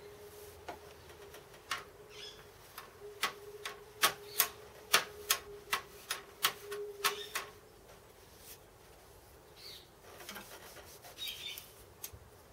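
Australian urban birds calling: a quick series of sharp clicking notes in the first half, and a few short chirps near the end.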